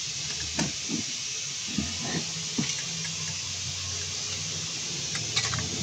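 Steady hiss with a low hum, broken by light clicks and taps of hands handling parts at a brake caliper: a few spread over the first seconds and a quick cluster near the end.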